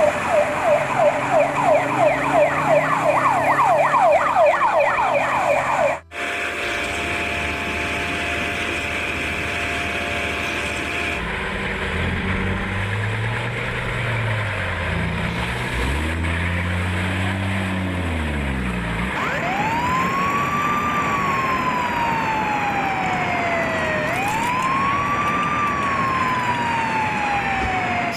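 Emergency vehicle sirens. First a fast yelp, a quickly repeating up-sweep, which cuts off abruptly about six seconds in. Then low humming tones rise and fall, and near the end a wail siren climbs and slowly falls, twice.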